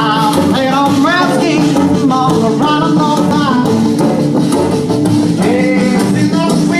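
Rock band playing: a voice singing over guitar and drums, the singing strongest in the first half.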